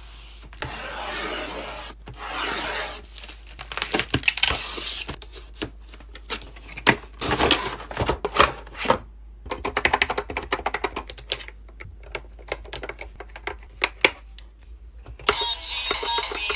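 Keyboard keys clicking in irregular runs of typing, with soft rustling in between.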